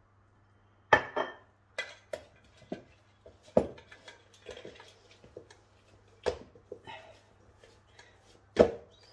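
Stainless steel mixing bowl knocking and clanking on the countertop as hands work oiled bread dough in it, a run of irregular sharp knocks, the loudest about a second in and near the end.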